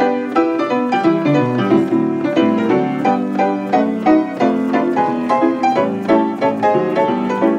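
1926 Kohler and Campbell player piano playing a paper music roll, chords and melody notes struck in a steady rhythm several times a second.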